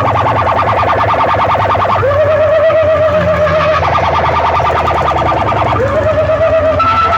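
Siren-like electronic alarm effect played loud through a DJ sound system: a rising wail that settles into a wavering tone, then a fast pulsing beep, the cycle repeating about every two seconds over a steady low bass hum.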